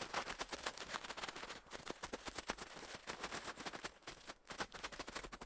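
Snow crunching underfoot as it is trampled down, a dense irregular run of crackly crunches that thins briefly a little past the middle.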